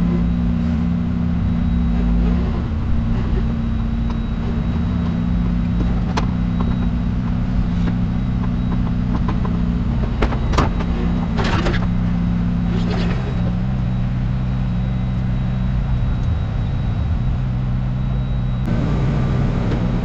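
An engine runs steadily with a low, even drone. A few sharp clanks and short noisy bursts come in around the middle, and the sound changes abruptly near the end.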